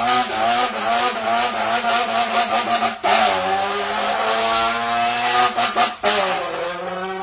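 A human voice imitating a race car's engine, buzzed into a can: held at high revs with a rapid stuttering crackle, in two long runs with a short break about three seconds in. This is his imitation of the car's 'lock'.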